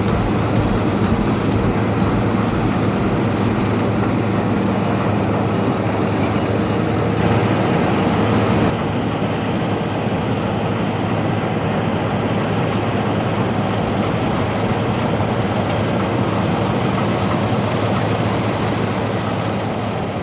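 Heavy diesel farm machinery running steadily during the wheat harvest, with a low engine drone and a hiss above it. The level and the hiss drop slightly about nine seconds in.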